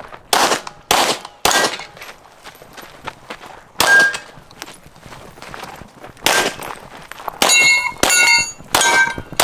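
Pistol shots at steel targets, each hit answered by the clang of a steel plate. There are about eight shots at uneven spacing, and the last three, about a second apart, leave the plates ringing with clear tones.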